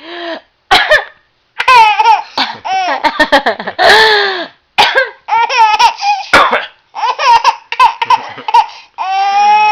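A woman coughing several times on purpose, with a baby's high-pitched laughter breaking out in runs between and after the coughs.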